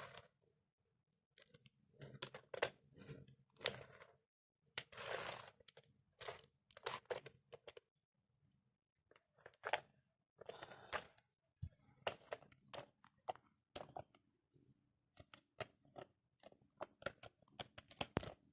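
Faint, irregular clicks, taps and short rustles of a plastic toy car being handled.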